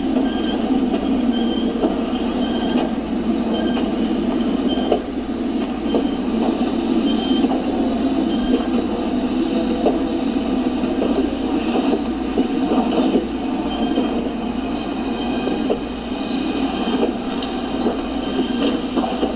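HO-scale North Shore Line Electroliner model train running steadily on its track: a continuous low rolling rumble of motor and wheels, with occasional faint clicks and brief high squeaks.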